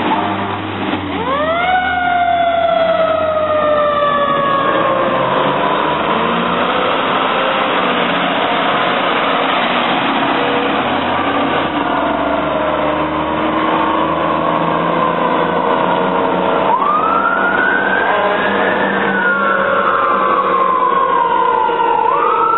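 Fire truck sirens as the apparatus pull out. The siren winds up quickly about a second in and falls slowly in pitch over several seconds, then winds up again twice later on. A truck's engine rumbles underneath.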